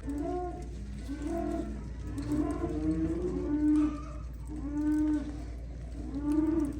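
Cattle mooing: a run of about six short calls, one roughly every second.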